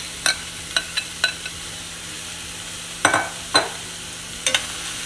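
Ghee sizzling with a steady hiss in a hot stainless steel frying pan as boiled chickpeas go in on top of onions and potatoes, with about six sharp clicks and knocks spread through it.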